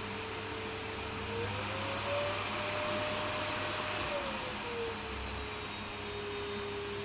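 Vacuum cleaner running steadily. Its motor pitch rises about a second in, holds, then drops back down between four and five seconds.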